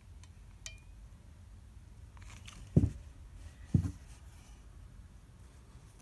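Two dull thumps about a second apart, with light clicks and faint rustling of craft materials being handled.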